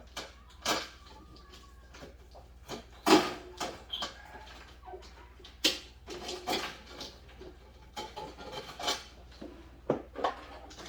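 Irregular clicks, knocks and light rattles of hands working a headlight wiring harness and its plastic clips loose from a Jeep Wrangler TJ's inner fender well, with the sharpest knock a little after three seconds in.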